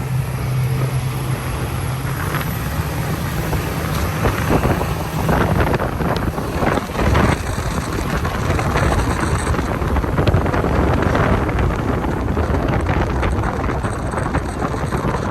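A diesel truck being driven off-road over beach sand. Its engine hums steadily at first, then is mostly covered by heavy wind buffeting on the microphone, with scattered knocks.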